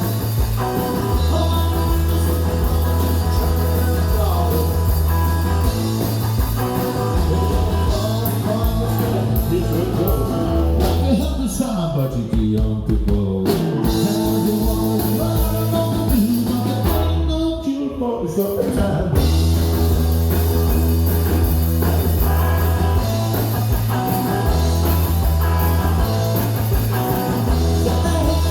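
Live rock band playing, with a heavy, steady bass line. Twice near the middle the band drops back briefly, with pitches sliding downward, before the full band comes back in.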